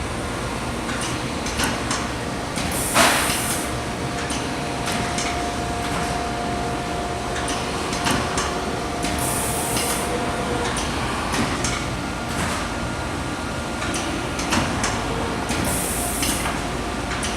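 Unibind BCC-10 binding machine running, a steady mechanical noise with frequent clicks and clacks. Three short hisses of its shop-air pneumatics venting come about six seconds apart.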